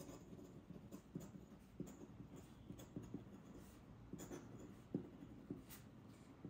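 Faint scratching of a feather quill dip pen's metal nib writing on paper, in short irregular strokes with small ticks.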